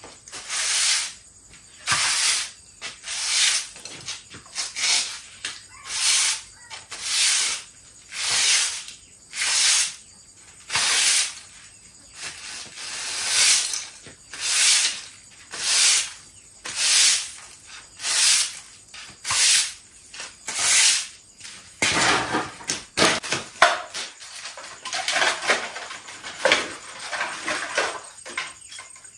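Rhythmic swishing strokes of a hand tool sweeping or scraping across the ground, about one every second and a quarter. From about 22 s in they come faster and less regularly, with a few duller low thuds mixed in.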